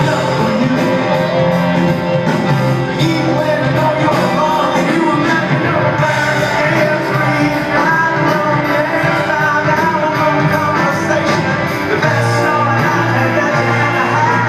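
Live rock band playing a song with a lead singer, heard loud from among the audience.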